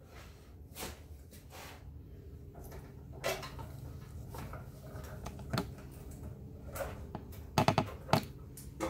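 Handling clicks and knocks of metal hose clamps and a silicone coupler being fitted onto a turbo charge pipe in a car's engine bay, with a quick run of several sharp clicks near the end, over a low steady hum.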